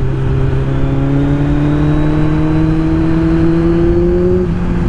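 Kawasaki Z1000's inline-four engine under way, its pitch rising slowly and steadily for about four seconds as the bike pulls in gear, then easing off near the end. A steady rush of wind runs under it.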